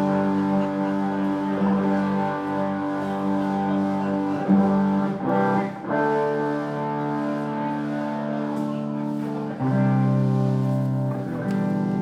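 Live band music led by guitar, playing long held chords that change about six seconds in and again near ten seconds.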